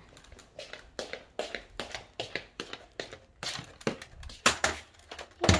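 Footsteps on a hard floor: a run of light, irregular taps and clicks, about two or three a second, with a louder thump near the end.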